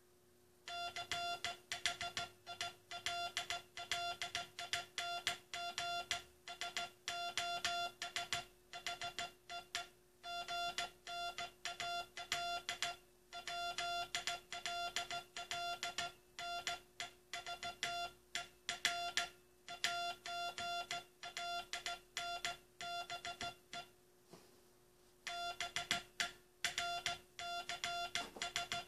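Morse code tone hand-sent in short and long beeps (dits and dahs) of one steady pitch, keyed continuously with a brief pause about 24 seconds in. It is part of the U.S. Coast Guard's last CW message, sent in code.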